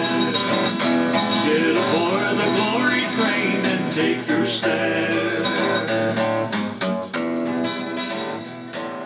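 Acoustic guitar strummed in a steady country rhythm, the closing instrumental of a gospel song; the level starts to fade near the end.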